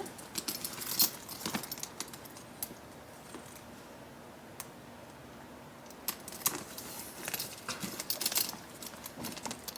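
Metal handbag strap hardware clinking and clicking as a strap's clasps are handled and hooked onto the bag, in two bursts of light jingles and clicks with a quieter pause between.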